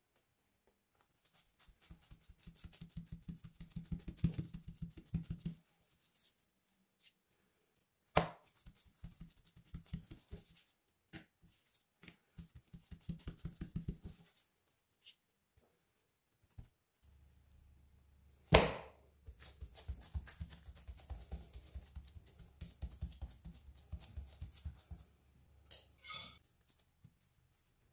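Yeast dough being patted and pressed flat on a plastic board with gloved fingertips: runs of quick soft taps lasting a few seconds each, broken by two sharper knocks, the louder one a little past halfway. A brief rustle comes near the end.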